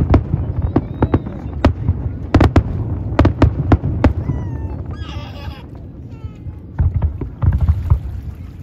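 Aerial fireworks shells bursting in quick succession: a string of sharp bangs over a low rumble that thins out about halfway, with more deep booms near the end.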